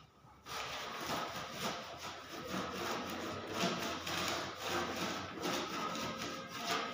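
Hand rubbing stain into a carved wooden door panel, a rough scratchy scrubbing of quick back-and-forth strokes over the wood that starts about half a second in.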